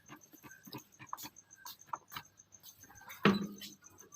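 Doves moving about in a cage: scattered light taps and scratches, with one louder knock about three seconds in.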